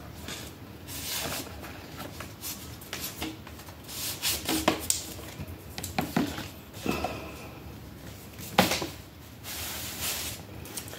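A door sweep's flexible strip being handled and fitted to the bottom of a door: irregular rubbing and sliding swishes with a few sharp clicks and a short squeak about seven seconds in.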